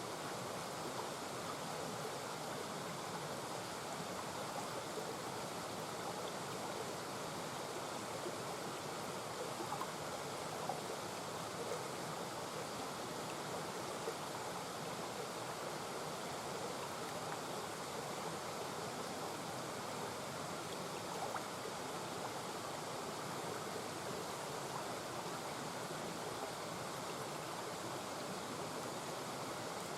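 A small mountain brook babbling steadily over stones, with small splashes flickering through the rushing water.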